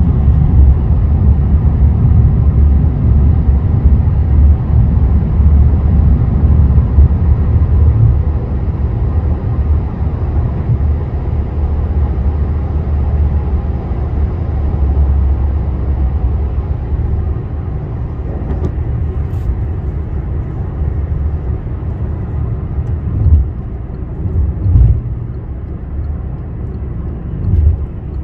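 Road and engine noise inside a moving car's cabin: a steady low rumble that eases off somewhat after about eight seconds, with a few short low thumps near the end.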